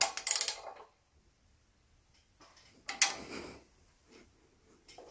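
Two brief bursts of metallic clicking and scraping, one at the start and one about three seconds in, as the bare Pontiac V8 is turned back and forth by hand to rock the camshaft lobe under a dial indicator.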